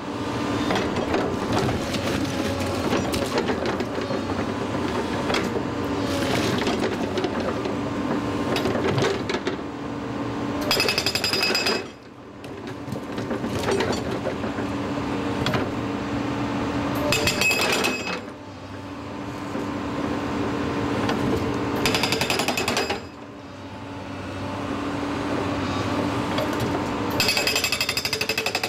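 Atlas Copco MB 1000 hydraulic breaker on an excavator hammering rock with a rapid, continuous rattle of blows. It runs in long bursts, broken by three short drops in level where the hammering eases and then builds back up.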